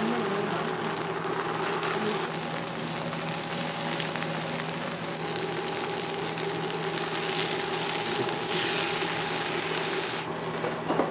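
Okonomiyaki batter and chopped green onions sizzling on a hot iron teppan griddle as more batter is poured over them, with a steady low hum underneath.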